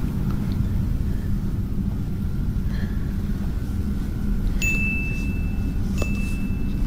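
Two high electronic beeps at the same pitch, the first about a second long, the second starting about a second and a half later and a little shorter, each switching on with a click, over a steady low rumble.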